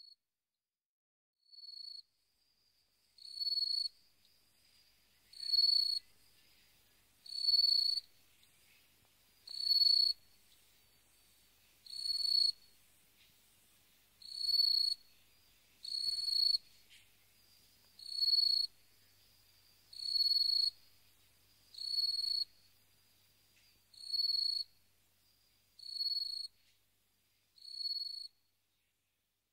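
Cricket chirping in long high trills, one about every two seconds, with a faint continuous insect trill between them through much of the stretch.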